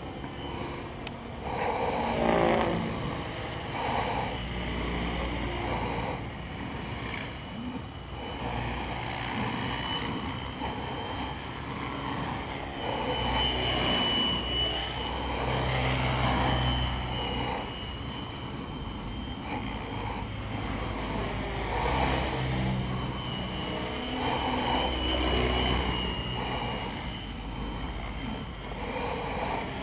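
Funcopter electric RC helicopter in flight: the steady high whine of its motor and drive, with the rotor sound rising and fading as it manoeuvres, over a low rumble that swells and eases.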